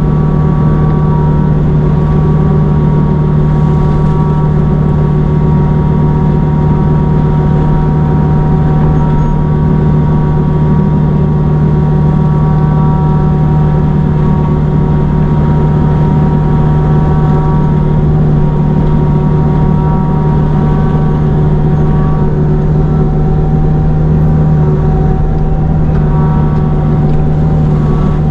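Kubota U55-4 mini excavator's diesel engine and hydraulics running steadily at high speed, driving a forestry mulcher head through brush: a loud, even drone with a steady humming tone.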